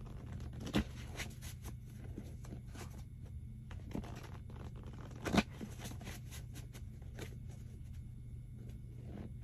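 Deck of cards being shuffled by hand: a soft, papery run of riffling clicks and rustles, with two sharper snaps, one about a second in and one about five seconds in.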